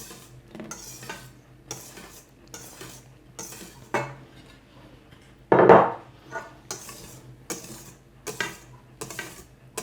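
A utensil scraping and knocking against a mixing bowl while cake batter is folded from top to bottom, about one stroke a second, with one louder knock a little past halfway.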